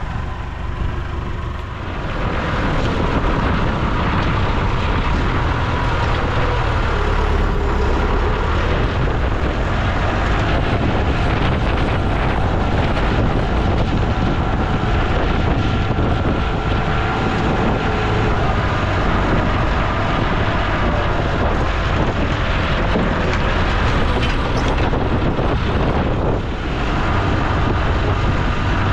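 A motor vehicle running steadily, louder from about two seconds in, with a low rumble.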